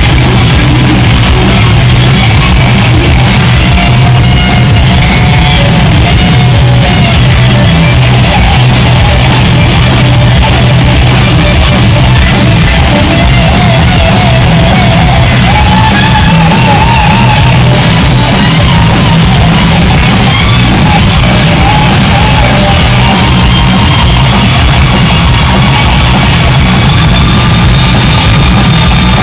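Punk rock band playing live at full volume: distorted electric guitars, bass guitar and drums, with shouted vocals at times.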